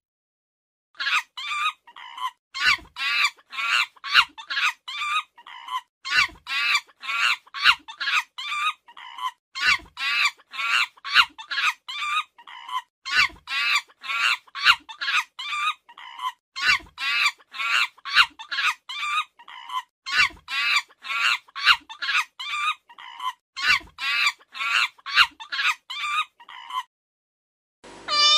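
An animal calling over and over in short, pitched calls, about two a second, stopping about a second before the end.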